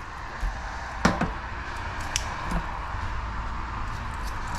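Kitchen scissors snipping through walleye fillets: a few short, sharp snips, the loudest about a second in, over steady low background noise.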